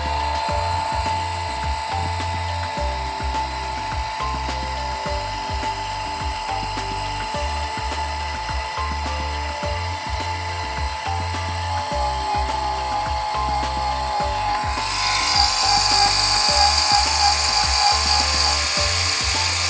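Valvcon ADC series electric actuator's motor and gear train running, turning the valve shaft back to the closed position on loss of power: its fail-safe return. A steady whine runs under background music.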